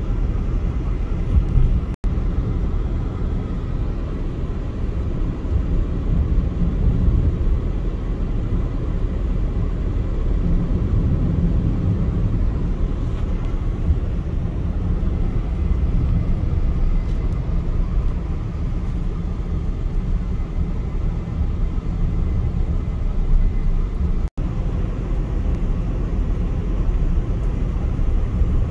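Steady low rumble of a car driving: road and wind noise, with no distinct events. It cuts out for an instant twice, about two seconds in and again near the end.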